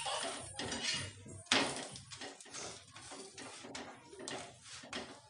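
Scattered clinks and knocks of steel kitchenware being handled, the loudest knock about one and a half seconds in.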